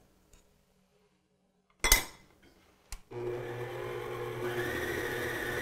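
A sharp click, then an electric stand mixer's motor starting about three seconds in and running steadily as its beater turns through cheesecake batter, its whine stepping up in pitch about a second after it starts.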